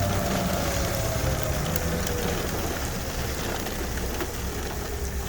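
Rain falling over a steady low rumble, while a tornado warning siren's tone falls in pitch and fades out about two seconds in; a fainter siren tone returns near the end.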